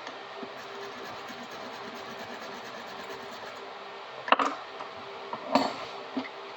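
A steady mechanical hum, with three sharp knocks about four, five and a half, and six seconds in.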